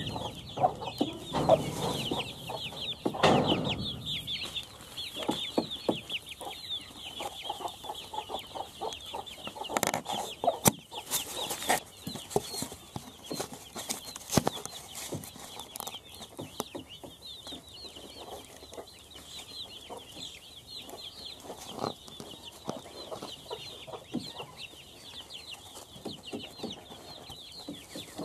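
Chicks peeping continuously with quick, high cheeps, while a hen clucks low during the first few seconds. Scattered light clicks and rustles come from the hen scratching and pecking in straw litter.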